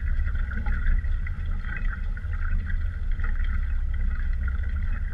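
Wind buffeting the microphone with a steady low rumble, over the hiss and splash of water rushing along a small sailboat's hull under sail.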